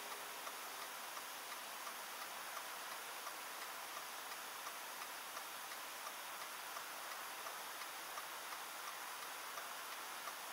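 Faint, steady hiss of a car's cabin picked up by a dash cam's weak built-in microphone, with light, evenly spaced ticking while the car sits stopped.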